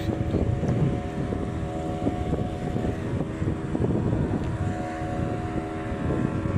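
A boat engine running steadily, with wind buffeting the microphone.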